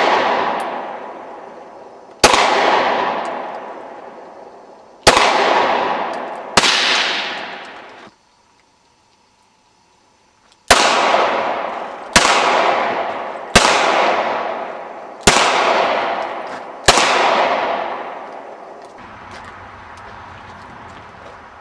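Pistol fired one shot at a time, eight shots spaced one to three seconds apart, each with a long echo dying away. Partway through there is a short stretch of dead silence.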